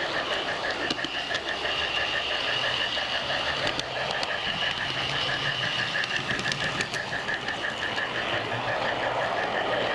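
A garden-scale model train running along its track, heard from on board: a steady mechanical running sound with a fast, even pulse and a higher steady tone, broken by a few sharp clicks.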